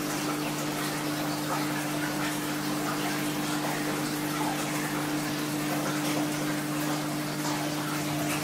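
Aquarium air stones bubbling, over a steady low hum from the tank's pump.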